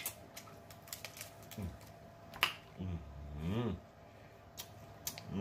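Close-up eating sounds of snow crab legs being sucked and chewed: scattered sharp mouth smacks and shell clicks, with a short hummed "mmm" that rises and falls in pitch about three seconds in.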